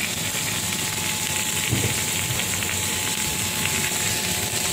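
Sliced chicken, onions and olives sizzling steadily in a hot nonstick pan while a silicone spatula stirs them.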